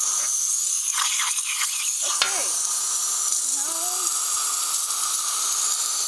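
Steam hissing steadily from a Krups XP1020 steam espresso machine switched over to steam, with a crackling sputter about a second in.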